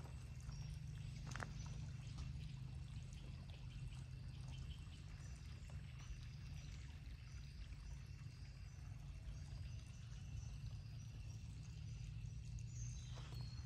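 Quiet outdoor ambience: a steady low rumble with faint, short high chirps scattered throughout, and a single sharp click about a second and a half in.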